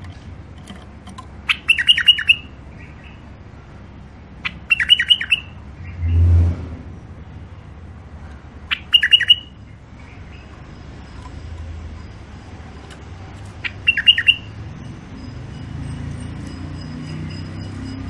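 White-eared bulbul singing: four short phrases, each a quick run of notes, a few seconds apart. A dull low thump comes about six seconds in.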